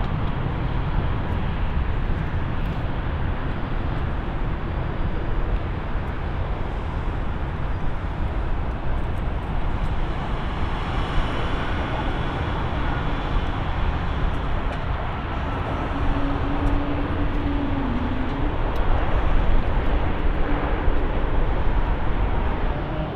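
Airliner engine noise at an airport: a steady, heavy rumble with hiss, swelling a little near the end.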